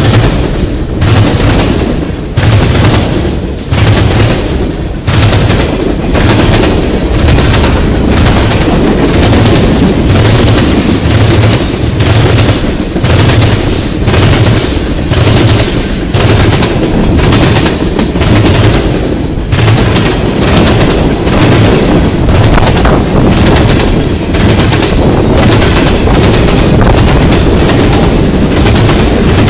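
Freight cars of a long mixed-freight train passing at speed, their wheels clacking over the track in a steady rhythm of about two sharp knocks a second over a loud rumble, with a steady high tone over it.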